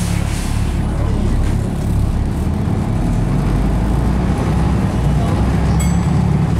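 Volvo B7RLE bus's seven-litre six-cylinder diesel engine and ZF automatic driveline, heard from inside the passenger saloon as the bus drives slowly along the street. The engine note shifts about two to three seconds in.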